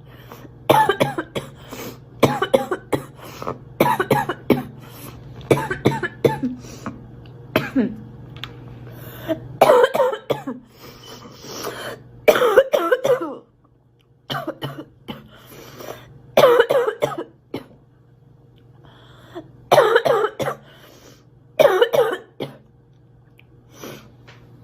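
A girl coughing repeatedly: about a dozen short fits of a few coughs each, coming every one and a half to two seconds.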